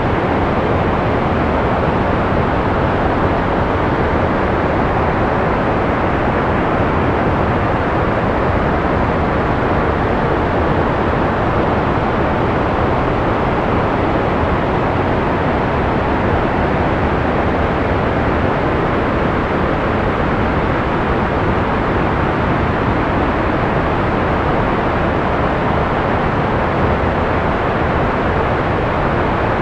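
Steady, unchanging synthetic noise of the sleep-aid kind: a smooth hiss weighted toward the low and middle range and rolled off in the highs, closer to a deep rushing hush than bright white-noise hiss.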